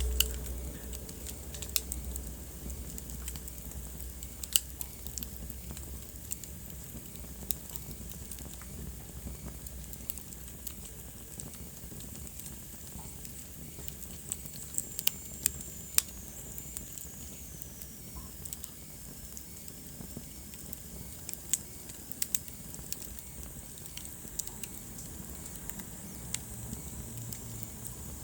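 Wood fire in a fireplace crackling over a soft steady hiss, with sharp pops scattered throughout. About halfway through, a faint high whistle slowly falls in pitch.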